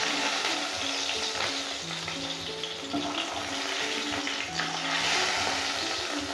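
Khoira fish sizzling steadily in hot mustard oil in a wok while a wooden spatula lifts the fried fish out, with light scrapes of the spatula against the pan.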